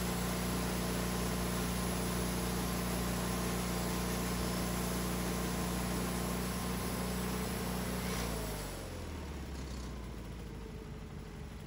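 Wood-Mizer LT40HD portable sawmill's engine running steadily at high speed. About eight seconds in its pitch falls smoothly as it slows to a lower idle, and the hiss above it drops away.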